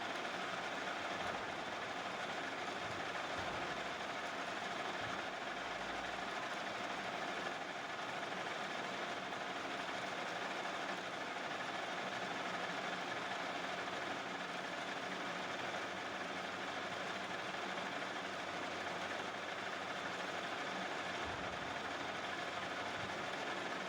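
Metal-turning lathe running steadily, an even mechanical hum with a faint steady whine, unchanged throughout.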